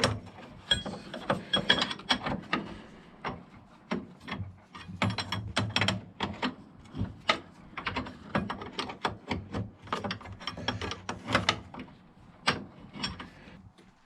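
Hand ratchet wrench clicking through repeated short strokes, with scattered metal knocks and clinks, as bolts are turned on an ATV's front drive shaft assembly.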